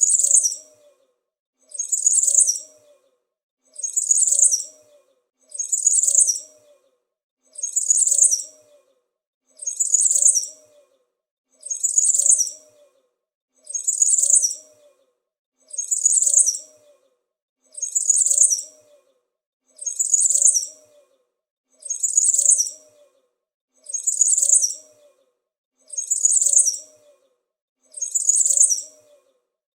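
A small bird chirping: a quick burst of high chirps lasting about a second, repeated identically about every two seconds as a looped sound effect.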